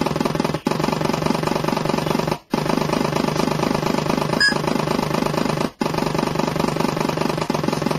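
Synthesized model-boat engine sound from a programmable engine sound unit playing through its speaker: a steady, rapidly pulsing engine beat that cuts out briefly three times.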